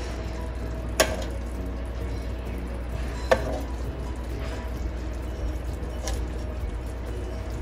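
A metal spoon clinking twice against a glass serving dish while thick curry gravy is spooned over the koftas, over a steady low hum.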